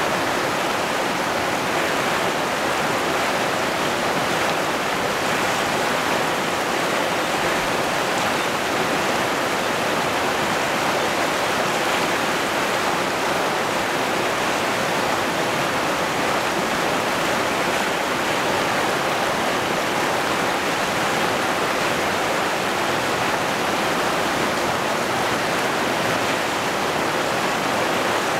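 River rapids rushing over boulders: a steady, unbroken rush of white water.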